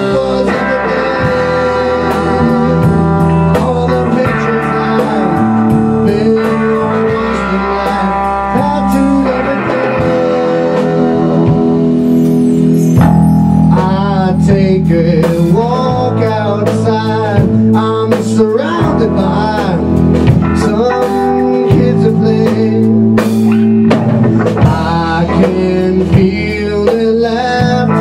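Live rock band playing: electric guitar, electric bass and a Tama drum kit together, with a steady beat and a bluesy guitar line.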